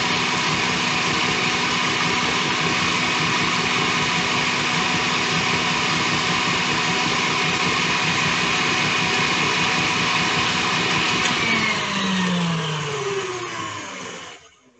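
Electric mixer running steadily, beating a shea butter lotion mixture. Near the end it is switched off and its pitch falls as the motor winds down to a stop.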